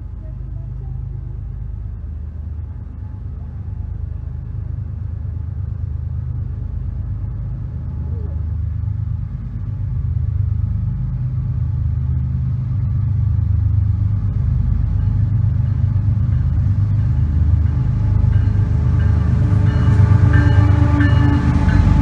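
Approaching CSX freight train's diesel locomotive running, a low engine rumble growing steadily louder as it nears, with rail and wheel clatter joining in at the end as the locomotive reaches and passes.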